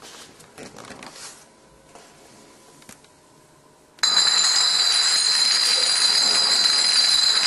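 A long domino chain of glass beer bottles toppling on a tiled floor: a dense, continuous clinking and clattering of glass with a bright ringing tone, starting abruptly about halfway through and going on at a steady loudness. Before it, only faint handling noise.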